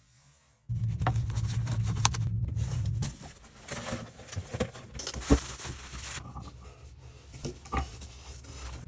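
A power tool's motor runs steadily for about two seconds and stops, then come scraping, clicks and knocks of hand work during a toilet flange replacement.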